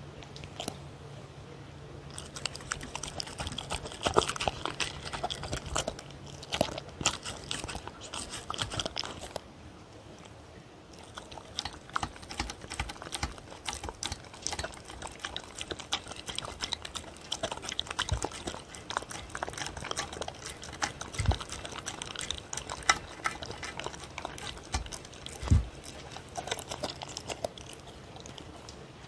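A dog eating from a stainless steel tray: quick, irregular chewing and licking clicks, with a short pause about ten seconds in. A couple of dull knocks come in the second half.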